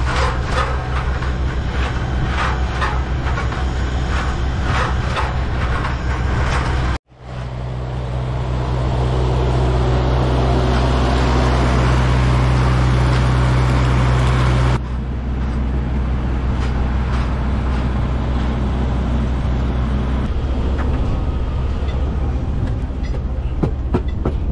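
Heavy construction machinery running loudly, with rapid repeated knocking for the first several seconds. After a brief cut, a steadier engine drone with a hiss builds up and then changes abruptly partway through.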